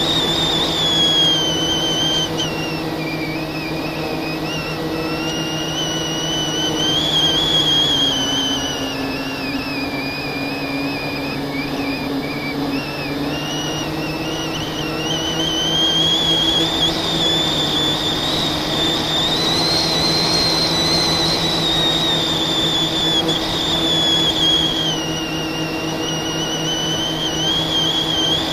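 FPV quadcopter's brushless motors and propellers whining, the pitch slowly falling and rising again several times as the throttle changes.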